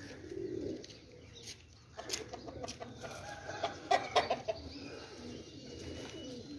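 Domestic pigeons cooing faintly, with scattered light clicks.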